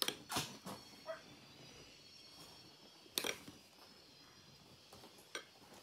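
Cutlery clinking and scraping on a ceramic plate: a handful of short sharp clicks, with a longer scrape about three seconds in, over a quiet room.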